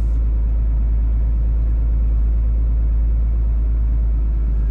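Scania R450 truck's engine and road noise heard from inside the cab while driving: a steady low rumble.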